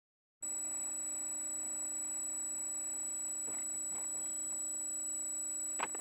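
Steady electronic hum and thin high whine over faint background noise from a dash cam's built-in microphone, cutting in abruptly about half a second in. A few faint knocks come around the middle, with a sharper one near the end.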